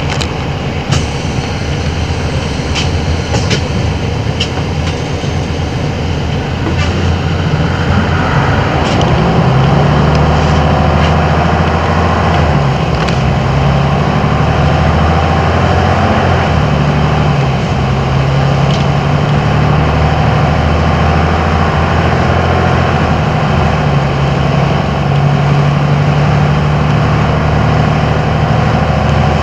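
DAF city bus diesel engine running and pulling away, its pitch stepping up and down as it changes speed through the gears. A few sharp clicks and knocks come in the first seconds.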